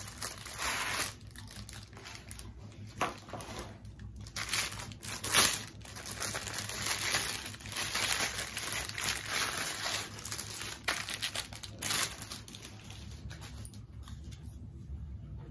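Plastic packaging bag crinkling and rustling as a wall hanging is pulled from a parcel and unwrapped, in irregular bursts with a loud crackle about five seconds in, quieter near the end.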